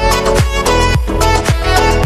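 Background music with a steady beat, about two beats a second, under a held, sustained melody.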